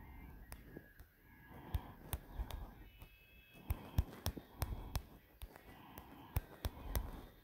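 Faint room sound with scattered light clicks and knocks at an irregular pace, typical of a finger tapping and stroking a phone's touchscreen and the phone being handled.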